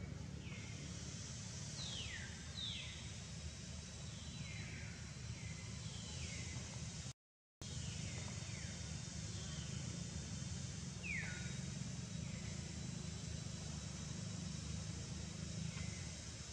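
Short whistled calls that each slide down in pitch, repeated every second or two, over a steady outdoor hiss and low rumble. The sound drops out completely for a moment about seven seconds in.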